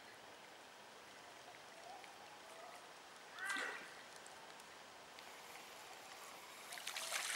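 Quiet creek ambience with a single bird call about three and a half seconds in. Near the end, splashing starts on the water's surface.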